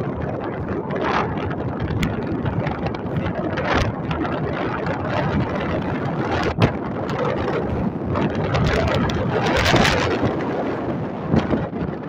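Wind buffeting the microphone in gusts over a steady rushing noise, with the loudest gust a little before the end.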